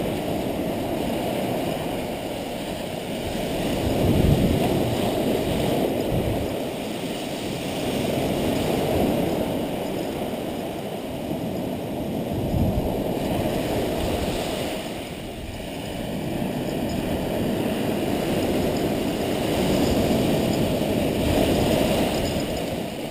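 Surf breaking and washing up a sandy beach, a steady rush of water that swells and eases every few seconds as each wave comes in.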